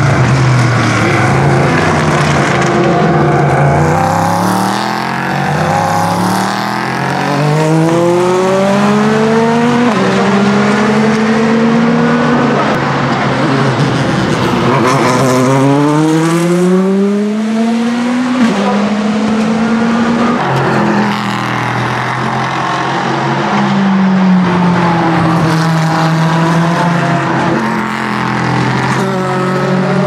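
Endurance race cars (LMP2 and LMP3 prototypes and GTE cars) accelerating hard on track, engine pitch climbing and dropping sharply at each upshift, one car after another.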